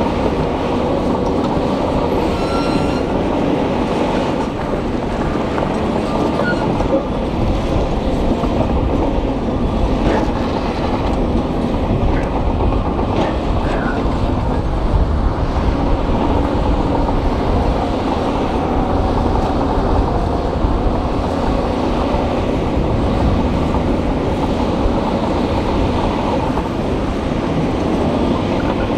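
Crawler bulldozer's diesel engine running steadily under load, with the clank and rattle of its steel tracks as the blade pushes rock and gravel.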